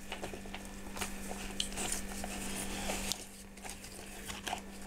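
Light, irregular crackling and clicking of bark pieces and moss in an orchid potting mix as they are handled and shifted around the roots. A steady low hum runs underneath.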